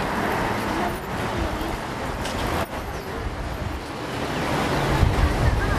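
Street traffic: cars driving along a city avenue, a steady noisy wash. About five seconds in, the low rumble swells as a minivan passes close by.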